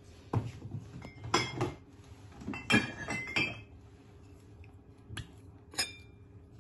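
Kitchenware clinking: a stainless spoon knocking against a ceramic bowl and other dishes, in a series of sharp clinks with short ringing, bunched in the first half and two more near the end.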